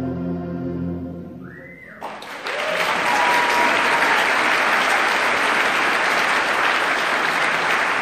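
The last held chord of the hymn's music dies away. About two seconds in, audience applause breaks out suddenly and carries on steadily.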